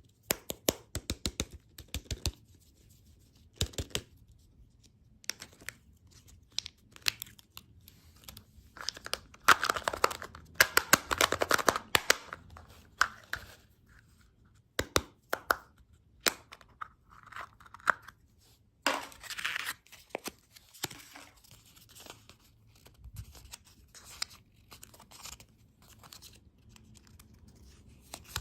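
Packaging being torn open and crinkled by hand, with many sharp clicks and taps. There are two longer spells of dense rustling and tearing, about a third of the way in and again past the middle.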